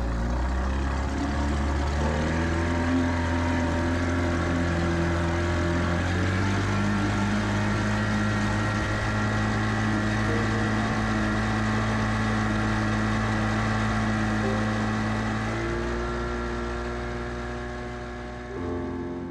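Johnson outboard motor running at speed, driving a small boat through the water. Its pitch steps up a few times, and the sound fades out near the end.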